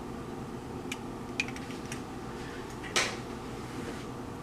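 Light clicks and a sharper tap, about three seconds in, from an egg and its shell being handled against a mixing bowl, over a steady low hum.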